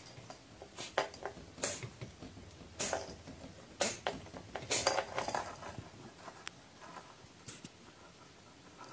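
Scattered short clinks and rustles from a cat's small collar bell and the cardboard under it as the cat is stroked and moves its head, most of them in the first two-thirds.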